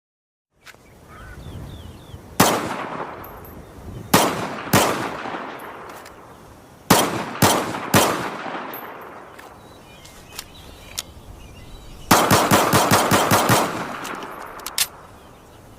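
M1911 pistol gunshots, each with a long echoing tail. First one shot, then two, then three, then a rapid run of about ten shots at roughly seven a second, and a last single shot near the end. A few faint clicks fall between them.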